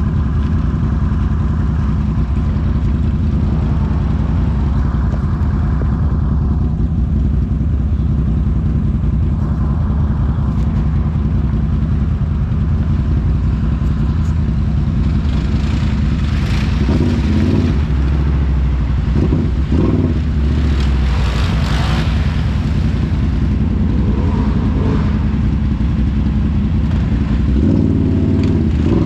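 ATV engine running steadily. Two spells of rushing noise come a little past halfway and again about three-quarters through.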